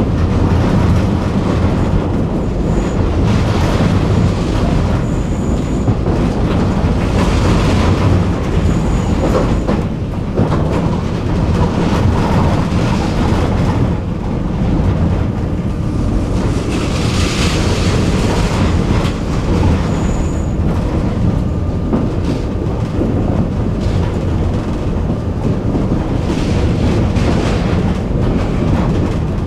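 Tram in motion: its wheels run on the rails with a steady, loud running noise, and a few brief high-pitched squeaks come through now and then.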